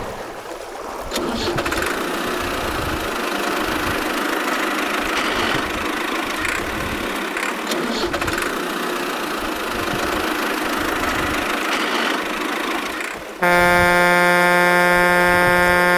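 Vehicle engine sound running steadily, then about 13 seconds in a loud, steady buzzing tone with many overtones cuts in suddenly and holds.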